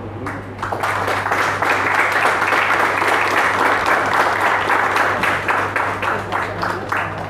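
A small group of people applauding with hand claps. The clapping starts about half a second in, holds steady, and thins out near the end.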